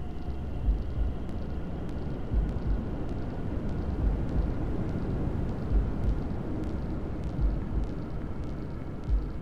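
Steady white noise with a heartbeat track mixed in: a low double thump, lub-dub, about every 1.7 seconds, the fetal heartbeat sound played to soothe a baby to sleep.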